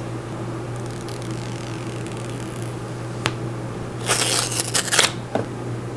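Handling noise over a steady low hum: a sharp click, then about a second of rustling, then another click.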